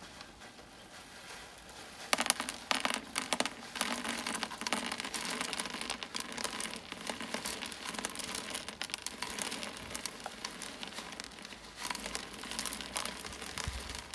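Plastic bag crinkling as ballast grit is poured from it into the hollow plastic dome of a pond bottom drain, with a dense patter of trickling grains. It is faint at first and gets busier about two seconds in.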